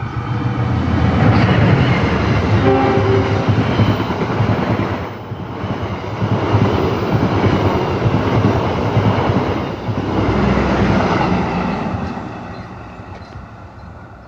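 Diesel locomotive and its train passing close by: a loud rumble of engine and wheels on rail that swells at the start and runs for about eleven seconds, with a rattle of the cars, then fades away near the end.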